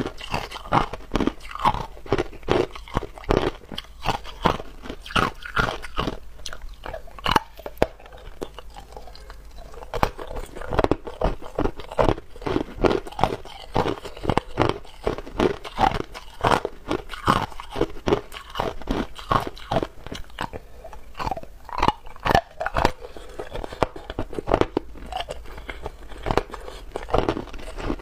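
Hard ice being bitten and chewed in the mouth close to a clip-on microphone: a steady run of sharp, crackling crunches, a few a second, easing briefly about eight seconds in.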